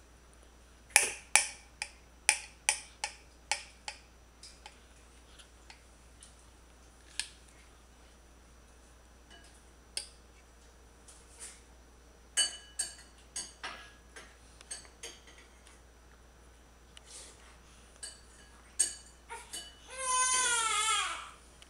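A toddler's fork clicking and tapping against a plate in two runs of sharp taps, then near the end a brief whiny cry from the toddler that falls in pitch.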